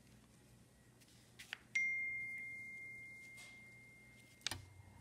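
A single clear, bell-like ding that starts sharply and rings out, fading over about three seconds. A couple of soft clicks come just before it and one more near the end.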